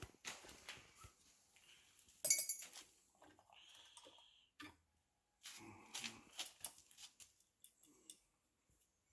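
Small metal parts and hand tools clinking, tapping and scraping as a truck's mechanical fuel pump is taken apart by hand, with one sharper clatter about two seconds in.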